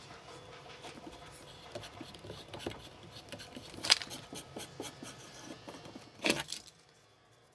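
Homemade ACME TR8x8x2 tap, ground from a piece of lead screw, being turned by hand in a tap wrench into a PTFE nut block: faint scratchy scraping and small ticks as it cuts the thread, with a sharp click about four seconds in and another about six seconds in.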